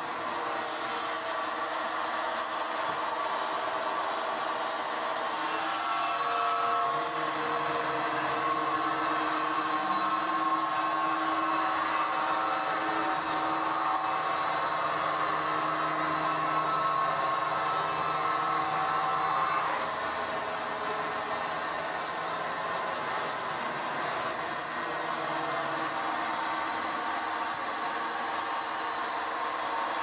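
Electric horizontal band sawmill running with a steady hiss and hum. A humming tone in several pitches comes in about a fifth of the way through and drops away about two-thirds of the way in.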